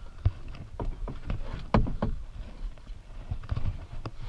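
Irregular knocks and bumps on a small plastic boat's hull as the people aboard shift about, over a steady low rumble.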